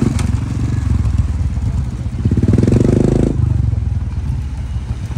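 Motorcycle engine running, revved harder for about a second from roughly two seconds in, then dropping back.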